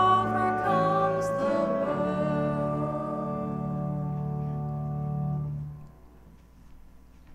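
A sung song with keyboard accompaniment, ending on a long held chord that dies away about six seconds in.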